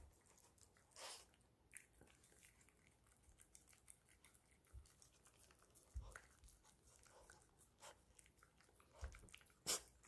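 A poodle licking and chewing the last cake crumbs off a ceramic plate: faint, scattered wet smacks and clicks, with one sharper click near the end.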